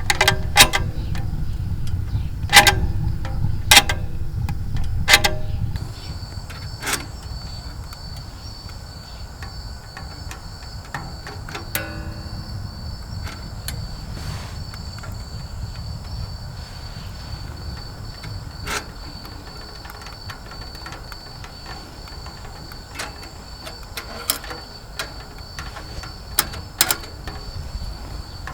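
Wood crackling and popping in a small camping wood stove, with sharp, irregular pops over a low rumble that drops away about six seconds in. After that a steady high insect trill runs on beneath the pops.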